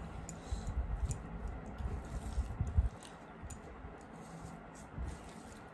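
Quiet sounds of eating by hand: fingers mixing rice and curry on steel plates and mouthfuls being chewed, with soft squishes and small clicks. It grows quieter about halfway through.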